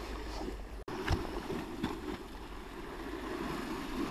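Wind buffeting the microphone over sea waves washing against the foot of a sea wall, a steady noisy rumble, with a short knock just after a second in.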